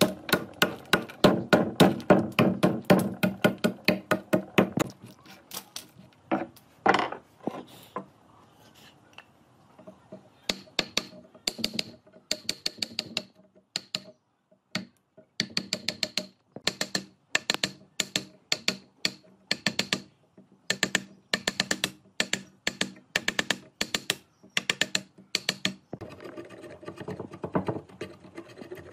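Quick, even strikes of a hand tool on wood, about four or five a second, coming in runs with short breaks between them.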